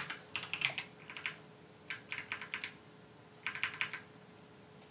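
Computer keyboard typing: three short runs of quick keystrokes, with a faint steady hum underneath.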